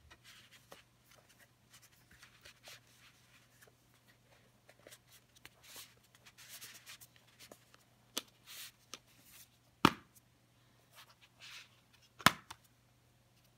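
Hands handling a cardboard CD digipak with plastic disc trays: soft rustling and sliding of card and plastic, with two sharp clicks about ten and twelve seconds in.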